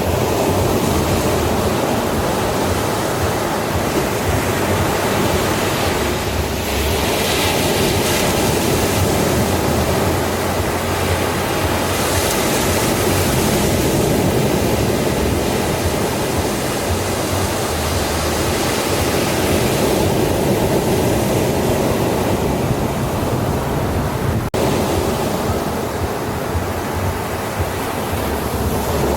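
Ocean surf: waves breaking and washing up a beach in a steady rush, with a couple of louder surges.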